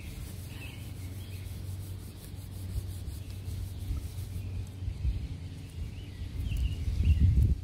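Headlight lens being rubbed by hand with a headlight restoration wipe, a steady scrubbing sound that gets louder near the end.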